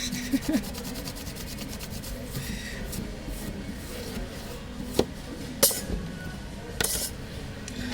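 Toothbrush bristles scrubbing back and forth on the phone, brushing earwax out of its grille, with a few sharp clicks of the brush or phone knocking about five, five and a half and seven seconds in.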